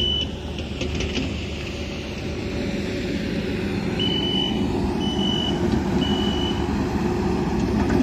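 Heavy farm machinery engine running steadily, with a back-up alarm beeping. One beep comes right at the start, then three evenly spaced beeps about a second apart in the second half, a sign that a machine is reversing.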